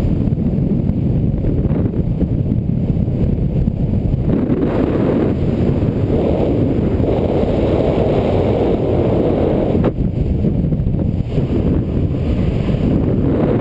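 Wind rushing over a helmet camera's microphone as a skydiver turns under an open parachute: a loud, steady, low rush, with one short click about ten seconds in.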